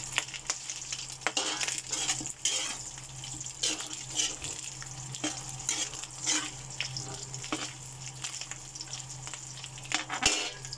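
Chopped boiled pork frying in its own rendered fat in a steel wok, a steady sizzle, with a metal spoon scraping and clicking against the wok as the pieces are stirred. The pork is nearly golden brown.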